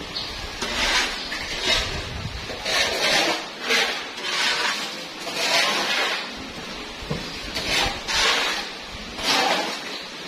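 Brush strokes, about ten of them at roughly one a second, each a short swish.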